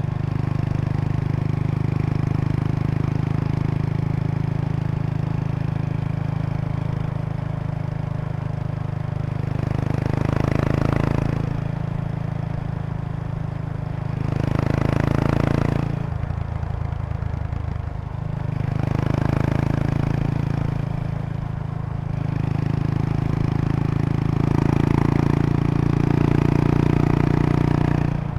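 Kawasaki Estrella RS single-cylinder engine under way through an aftermarket Yamato muffler, with an even, steady exhaust beat. The note swells louder several times as the throttle is opened, with the longest spell near the end. A light buzzing rattle rides on it: the seat bag's stiffener plate resonating with the bike's vibration.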